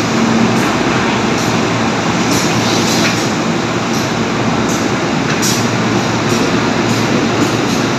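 A JR 205 series electric commuter train pulling out along the platform: a steady, loud rumble of wheels and traction motors, with light irregular clicks.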